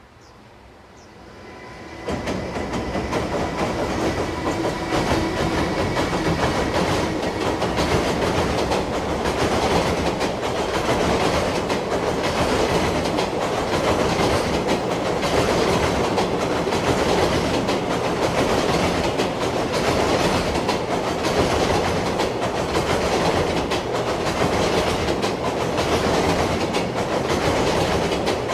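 A long freight train, hauled by an EH200 electric locomotive, passing close by at speed. The sound comes in suddenly about two seconds in, as the head of the train reaches the spot, and then the wagons' wheels clatter steadily over the rail joints without letup.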